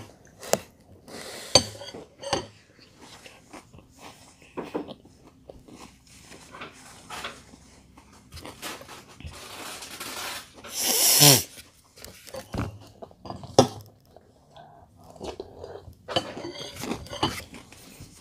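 Chewing and crunching a mouthful of Peach Cheerios cereal in milk, with sharp clinks of a metal spoon against a glass bowl in the first few seconds. One louder rushing noise about eleven seconds in.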